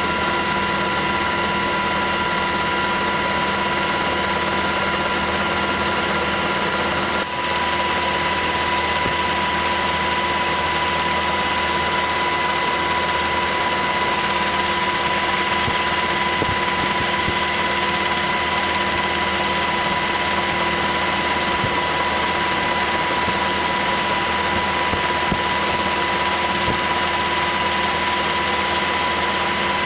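Steady drone of an aircraft's turbine engine with a constant high whine over a low hum, as heard aboard the filming aircraft; a brief dip about seven seconds in.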